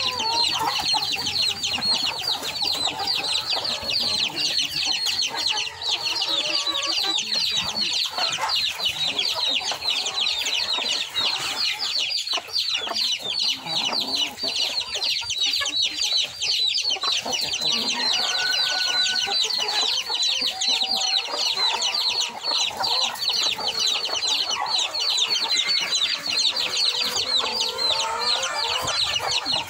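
A backyard flock of roosters and hens clucking as they forage, over a constant high, fast-pulsing chirr.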